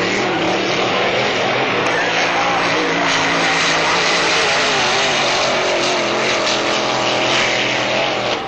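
Racing powerboat engines running at speed, a loud, steady engine drone as the boats race past.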